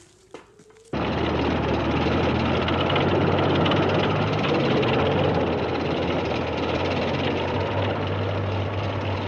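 T-34 tank running and driving, its engine and tracks making a loud, steady noise that starts abruptly about a second in.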